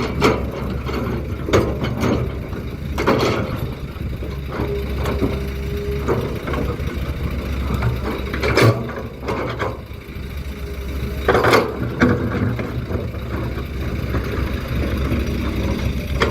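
Heavy diesel machinery such as an excavator or dump truck running steadily, with a handful of sharp, irregular clanks and knocks of stone and metal.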